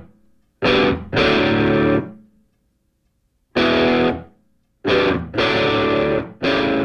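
Title music: distorted electric guitar chords, played as a handful of held stabs that cut off abruptly, with short silent gaps between them.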